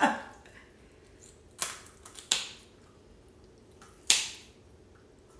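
Kitchen shears cutting through a raw whole chicken's rib bones to separate the breast from the back. There are three sharp snips: one about a second and a half in, another a moment later, and a last one about four seconds in.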